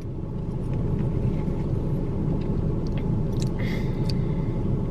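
Steady low rumble of a car idling, heard from inside the cabin, with a few faint small clicks.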